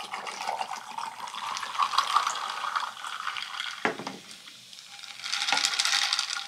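Lemon sparkling water from a can and oolong tea from a plastic bottle being poured over ice cubes in tall glasses. There is a steady pouring sound, with a single sharp knock just before four seconds in.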